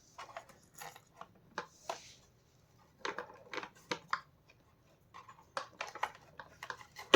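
Plastic parts of a vacuum cleaner's brush bar assembly being handled and taken apart by hand: scattered light clicks and knocks, with a louder knock near the end.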